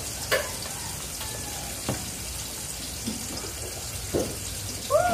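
Bacon-wrapped chicken frying in a pan of oil: a steady sizzle, with two sharp clicks in the first two seconds.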